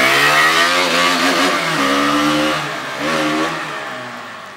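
KTM RC 200 BS6's 199.5 cc single-cylinder engine through its stock underbelly exhaust, accelerating past and pulling away. The pitch climbs with the revs and drops at two upshifts, about two and three seconds in. The sound fades as the bike rides off into the distance.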